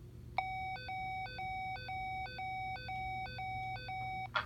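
Simplex 4100U high-low fire alarm tone played through an EST Genesis G4F-S2 fire alarm speaker. The tone alternates between pitches about twice a second, starting about half a second in and stopping just before the end.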